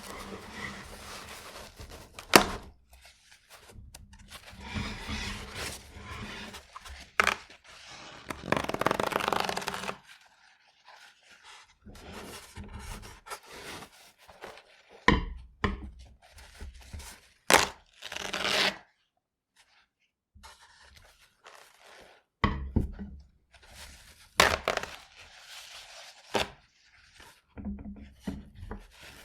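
Paper towel sheets being torn off a roll, again and again: rustling and unrolling followed by sharp rips at the perforations, with short pauses between tears.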